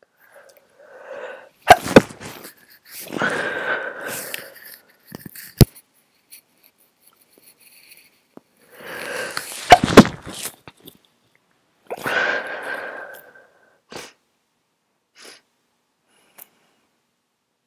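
Two stifled sneezes from a person with a head cold, the second about eight seconds after the first. Each comes with a sharp burst after a short gasping build-up, followed by a longer noisy breath.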